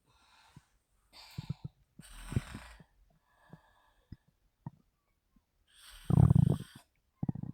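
A woman snoring with her mouth open: a few softer, rattling breaths in the first few seconds, then a loud, low, rattling snore about six seconds in, with the next one starting just at the end.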